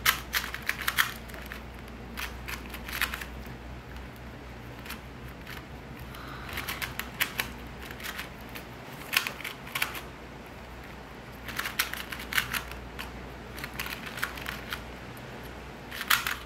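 A new 2x2 Rubik's cube being turned by hand, in several quick runs of light clicking with pauses between.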